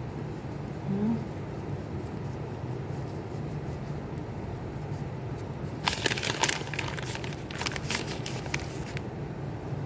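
Plastic crinkling and rustling for about three seconds past the middle, as shredded mozzarella is taken from its plastic bag with a gloved hand, over a steady low hum.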